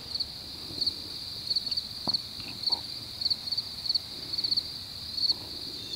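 Crickets chirping: a steady high trill with pulsed chirps about two or three times a second, and a faint click about two seconds in.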